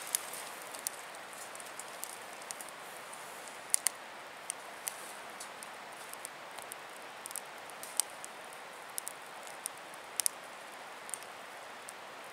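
Sticks burning in a Lixada folding wood-burning camp stove: the fire crackles with irregular sharp pops over a steady hiss.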